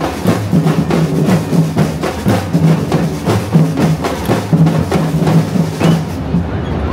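Street drum line playing a fast, driving rhythm on bass and snare drums, the low drums pulsing under dense stick strokes; the playing stops about six seconds in.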